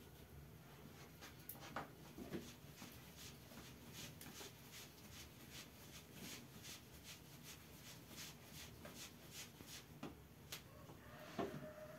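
Faint soft rubbing and patting of bread dough being rolled into balls by hand on a floured wooden board, with a quick run of light ticks through the middle.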